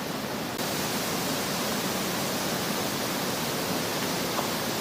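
Steady outdoor hiss of strong wind, even and without distinct events, stepping up slightly about half a second in.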